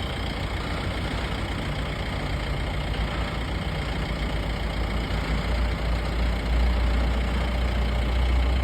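An engine running steadily with a low rumble that grows louder about six and a half seconds in.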